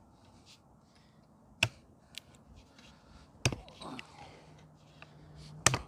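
Machete-style knife forged from bed-frame steel chopping into wood: three sharp chops about two seconds apart, the last a quick double hit. The blade is bouncing off the wood because it is set on an old railroad tie.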